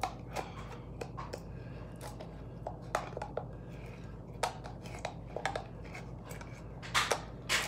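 Irregular small clicks and light taps, a few louder ones about seven seconds in, over a steady low hum.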